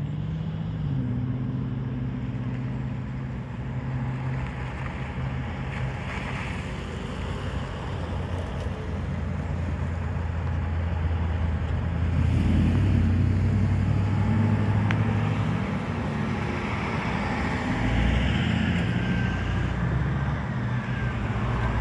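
Road traffic going round a roundabout at low speed: the engines of cars, pickups and trucks, including a semi tractor, running steadily with tyre noise on the pavement. It grows louder about halfway through as vehicles pass close by.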